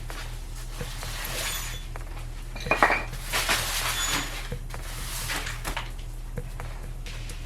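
Hard metal objects clinking and clattering as they are handled and moved, with a sharp cluster of clinks about three seconds in, over rustling and a steady low hum.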